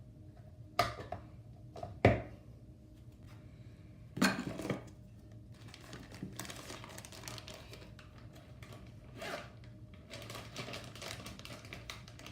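Mixed slime being squished and kneaded by hand, giving a few sharp pops and stretches of faint crackly clicking.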